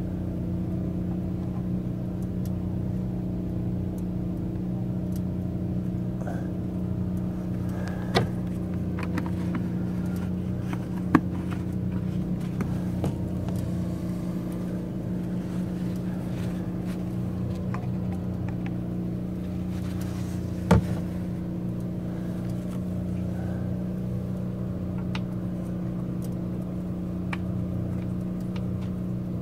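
A small generator engine running with a steady hum. Occasional sharp clicks and knocks from handling, the loudest about 11 and 21 seconds in.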